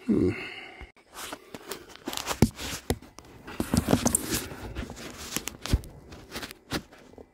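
A flat piece of cab air-filter material being squeezed and worked by hand into a narrow slot in a truck's ventilation housing: irregular rustling and scraping with occasional sharp knocks.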